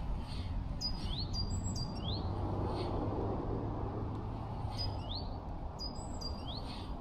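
Small birds calling: short rising chirps, about four of them spread through, with a few thin high whistles, over steady low outdoor background noise.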